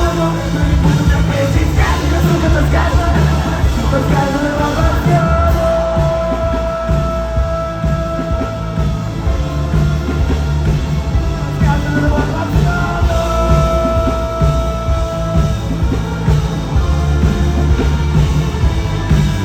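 Loud live rock music with singing over a heavy bass and drum beat; a long held note comes twice, about five seconds in and again around thirteen seconds in.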